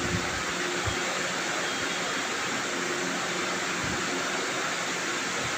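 Steady, even rushing hiss, with a couple of faint low thumps.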